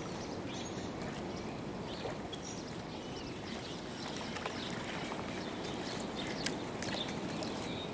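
Steady rush of river water flowing and lapping along a muddy bank, with a few faint clicks and a short high chirp about half a second in.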